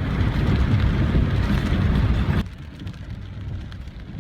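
Car driving through deep floodwater: a loud, steady rushing of water spray over the engine and road rumble, which cuts off sharply about two and a half seconds in, leaving a quieter low rumble.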